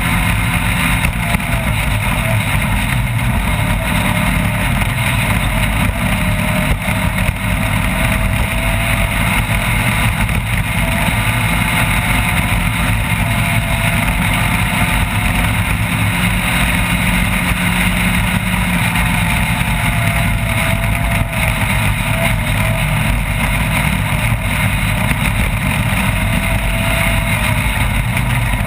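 Off-road race vehicle running continuously at speed: steady engine noise with a faint whine that rises and falls, over constant rumble and rattle.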